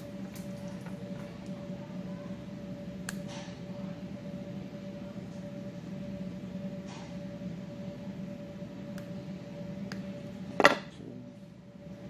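Side-cutter pliers and wire being handled, with a few faint clicks, then one sharp clack about ten and a half seconds in as the pliers are set down on a wooden panel. A steady hum runs underneath.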